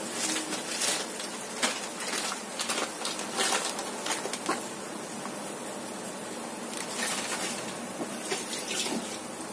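Thick sauce of oyster sauce and sweet soy sauce sizzling and bubbling in a wok, with irregular crackles and pops.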